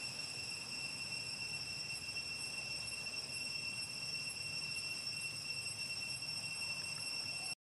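Steady, high-pitched insect drone, one unchanging tone with overtones, over a low background rumble. The sound drops out for a moment near the end.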